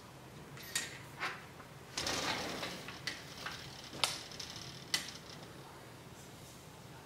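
A Bengal cat's claws hooking and scratching at a sliding screen door, the light screen frame clicking and rattling in its track and sliding open with a short scraping rush. There are a few sharp clicks, with the scrape about two seconds in.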